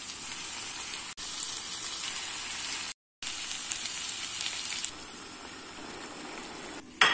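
Food sizzling in a nonstick frying pan over short edited cuts: chopped onion frying in oil, then the orzo and mixed vegetables frying. After about five seconds it becomes a quieter, lower bubbling as the pilaf simmers in its water.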